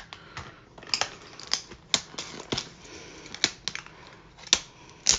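About ten sharp, irregular plastic clicks and snaps as the white plastic frame of a laptop LCD panel is pried off its clips by hand. The loudest snap comes near the end.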